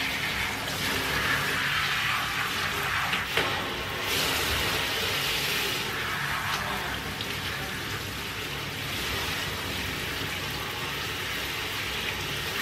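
Handheld bathtub shower running, spraying water over a small dog's wet coat and into the tub, a steady hiss whose tone shifts as the spray moves. A single light knock about three seconds in.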